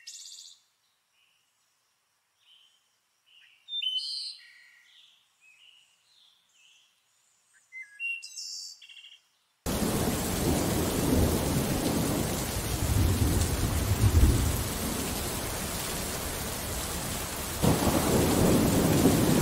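A few sparse, faint bird chirps, then heavy rain starts suddenly about halfway through, with low rolls of thunder; the storm grows louder near the end.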